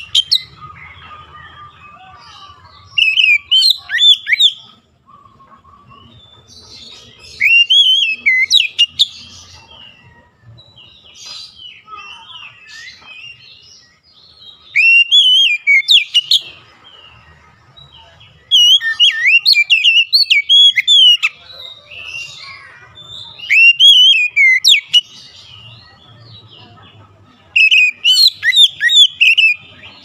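Oriental magpie-robin (kacer) singing: loud bursts of rapid, sweeping whistled notes, each one to two seconds long, about six times, with softer chirps in the pauses between them.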